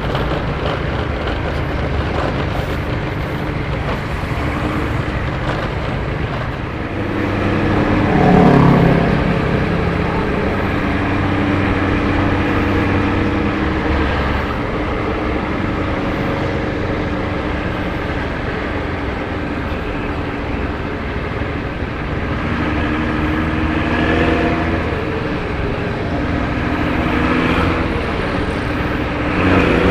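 Intercity bus's diesel engine running, its exhaust giving a deep, steady rumble likened to snoring. The engine swells briefly about eight seconds in and again near the end.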